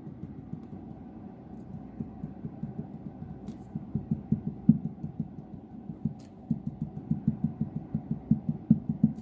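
Monroe gas shock absorber cartridge from an Opel Vectra A front strut, its rod worked in and out and knocking at one point in its travel: a rapid string of dull knocks, about four a second, growing louder about four seconds in. The knock is in the shock absorber itself, not the strut bearing, which a new bearing did not cure.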